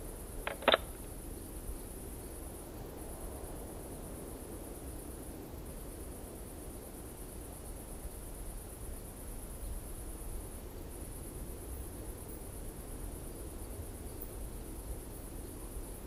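Steady high-pitched chorus of crickets over a faint low rumble, with two short clicks just after the start.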